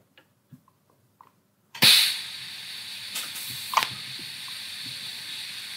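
TIG welding torch striking its arc about two seconds in to make a tack weld on an exhaust tube, with a sharp crackle at the strike. A steady hiss follows as the shielding gas keeps flowing over the fresh tack to keep it bright.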